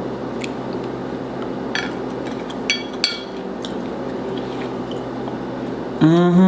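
Wet chewing and mouth sounds of someone eating, with a few short sharp clicks over a steady low hum; near the end a loud vocal exclamation rising in pitch.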